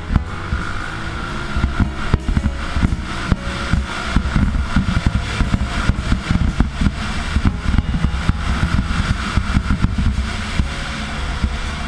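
Honda dirt bike engine running under way at speed, with irregular low buffeting and thumps throughout.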